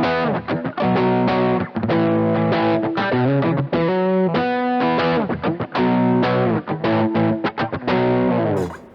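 Johnson JH-100 hollow-body electric guitar played through an amp with overdrive on its bridge pickup: distorted strummed chords with a quick run of single notes in the middle. The playing stops shortly before the end.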